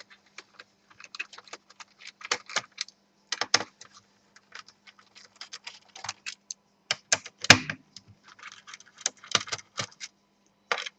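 Screwdriver taking small screws out of a laptop's plastic bottom case: irregular small clicks and taps, with one louder click about seven and a half seconds in.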